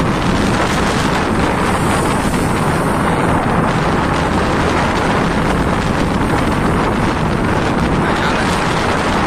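Hard wind blowing across the microphone over the rush of white water along a steel ship's hull in rough sea, as one steady, unbroken noise.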